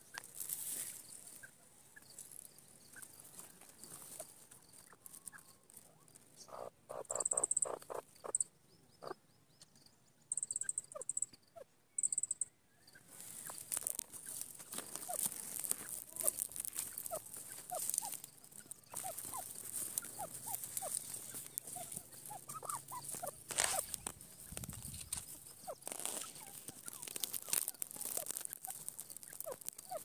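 Grey francolin foraging on the ground close by: soft pecking, scratching and rustling in grass and soil, including a quick run of about eight light taps about a quarter of the way in.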